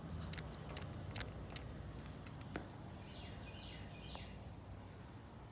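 Light clicks and taps from leak-detector bubble soap being dabbed onto a pressurized aluminum coil, most of them in the first second and a half, over a steady low hum. A few faint high chirps come about three seconds in.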